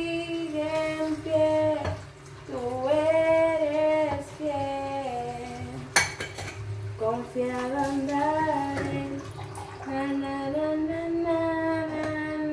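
A woman singing wordless or unclear melodic phrases with long held notes, in several breaths. A single sharp clink of kitchenware cuts in about six seconds in.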